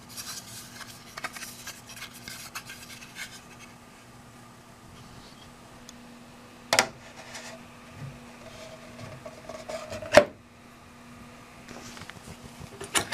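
Prusa spring-steel print sheet being handled and laid onto the printer's magnetic heatbed: light rubbing and scraping, with two sharp clicks about three and a half seconds apart as the sheet meets the magnets, over a faint steady hum.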